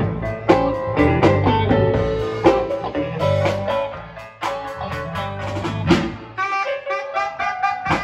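Live band music led by electric guitar over a bass guitar line, with scattered sharp percussive hits. The bass drops out about six seconds in while the guitar carries on.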